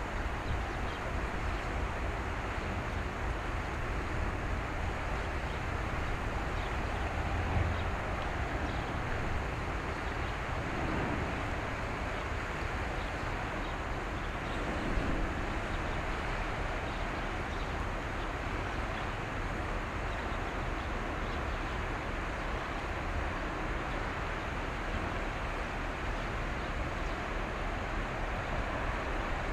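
Steady low rumble mixed with wind noise on the microphone, with no distinct events.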